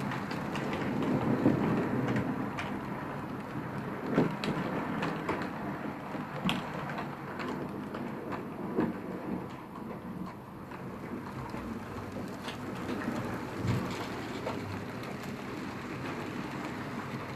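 HO scale model train, a diesel locomotive hauling passenger coaches on PIKO track, running with a steady hiss and scattered clicks of the wheels on the rails.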